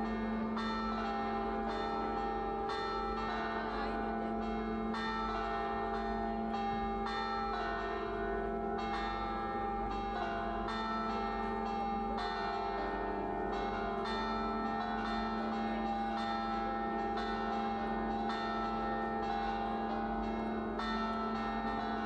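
Bell chimes ringing in a continuous melodic pattern, a new note struck every half second or so over a steady held low tone.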